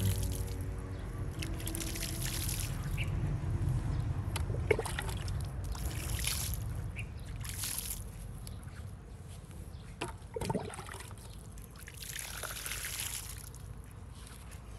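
Water poured from a plastic bottle trickling and splashing onto dry soil around a seedling's base, in several separate pours.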